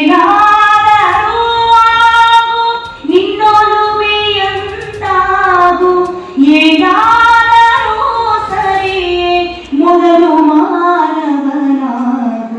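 A woman singing solo into a microphone: slow phrases of long held notes, with brief pauses between the phrases.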